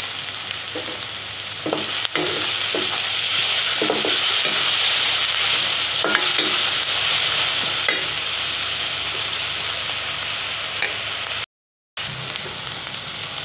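Sliced onions and capsicum sizzling in hot oil in a steel kadhai, stirred with a perforated steel spatula that scrapes and knocks against the pan several times. The sizzle grows louder about two seconds in, and the sound drops out for a moment near the end.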